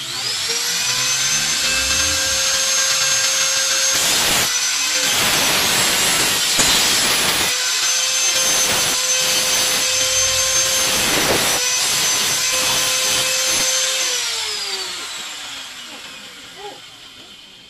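Handheld angle grinder starting up and running at a steady high whine, with loud grinding bursts as its disc cuts through a white rod several times. About fourteen seconds in it is switched off, and its whine falls in pitch and fades as the disc spins down.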